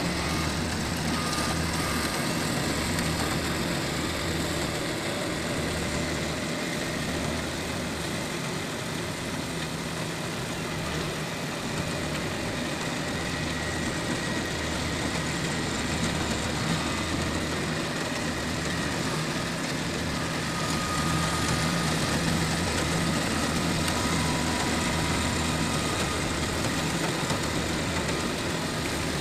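Kubota DC-70G combine harvester running steadily as it cuts rice, its diesel engine hum joined now and then by a faint machinery whine.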